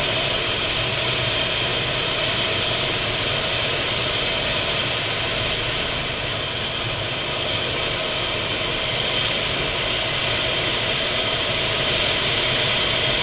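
Steady engine, wind and tyre noise heard inside the cabin of a Saab 9-3 2.0t, its turbocharged four-cylinder running under constant load at high speed.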